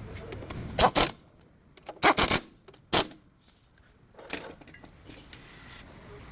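Metal objects clinking and clattering, as in hand tools or brake hardware being handled and set down: a few sharp strikes in the first three seconds and one fainter one a little after four seconds.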